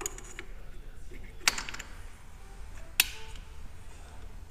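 Metal parts clinking during hand work: two sharp metallic clicks with a short ring, about a second and a half apart, plus lighter clinks near the start. The sound comes from steel spacer washers and tools being handled while the washers behind a V-belt pulley are swapped.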